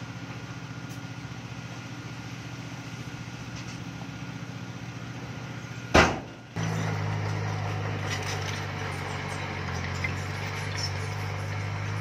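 Diesel engine of heavy construction machinery running steadily with a low, pulsing beat. About six seconds in comes a sudden loud burst lasting about half a second, after which a louder, steadier engine note continues with scattered clicks and clanks.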